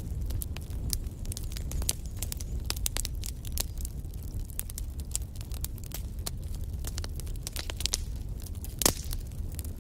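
Wood fire burning in a fireplace: a steady low rumble of flames with frequent sharp crackles and pops, one louder pop near the end.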